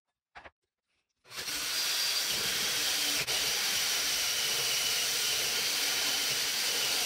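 Power drill with a 4.5 cm round cutting bit boring through a wooden panel: a steady whir and grinding of the cutter in the wood, starting about a second in, with a brief dip about three seconds in. A short knock comes just before it.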